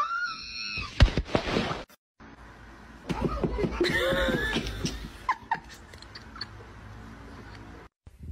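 A sharp knock about a second in, then a person's short bursts of laughter for a couple of seconds.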